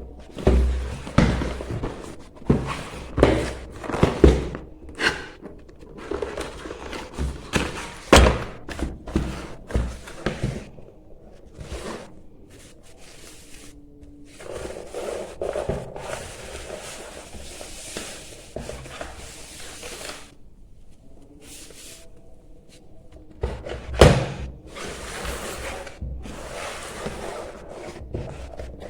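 A gaming keyboard's cardboard box and packaging being handled and opened: repeated thunks and knocks, with stretches of rustling between them and one louder knock near the end.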